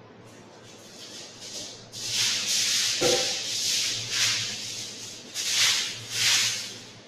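Aluminium foil rustling and crinkling as it is unrolled and handled, in several loud swells over about five seconds, with a short knock about three seconds in.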